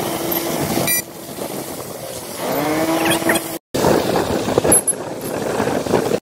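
Street traffic and vehicle engines, heard in short clips that cut off abruptly, with a brief gap of silence between them. About halfway through a vehicle engine's pitch rises. The last couple of seconds are engine and road noise recorded from a moving motorcycle.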